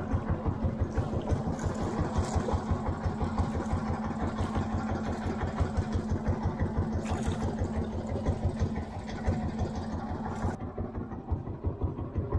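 Small boat engine running steadily at low speed with an even, rapid beat. A high hiss above it cuts off near the end.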